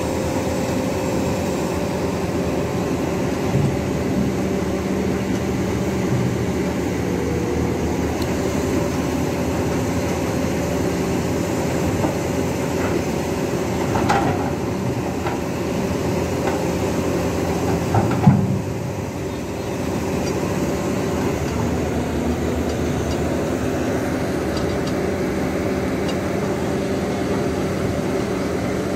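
Caterpillar hydraulic excavator's diesel engine running steadily under work, with a few sharp knocks, the loudest about two-thirds of the way through.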